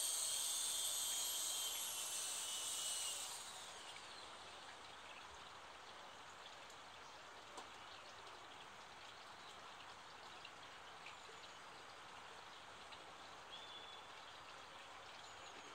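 Electric motor and rotor whine of a WL Toys V913 RC helicopter, high-pitched, dropping and cutting off about three seconds in as it powers down. After it, a steady faint outdoor hiss with a few faint short chirps.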